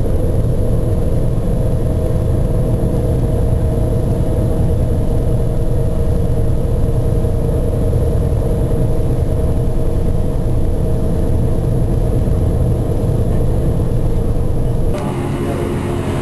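A ferry's engines running steadily under way: a constant low rumble with a steady hum over it. Near the end it cuts off abruptly to a quieter, different steady hum.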